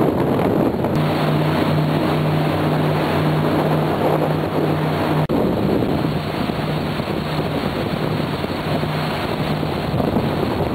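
Regal 4060 cruiser running under way: a steady low engine hum under rushing wind on the microphone and water noise from the hull. The hum sets in about a second in, and everything drops out for an instant about halfway through.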